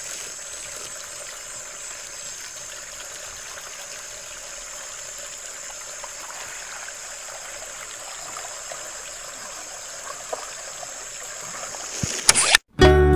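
Creek water flowing steadily, an even rushing trickle with a thin, steady high tone over it. It is cut off abruptly near the end by guitar music.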